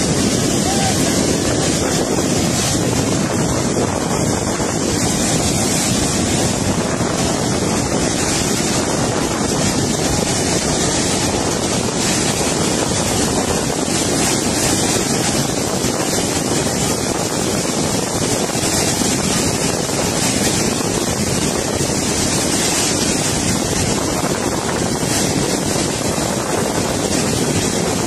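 Flash-flood surge of muddy, foaming water rushing across a dry riverbed, a steady wash of noise mixed with wind on the microphone.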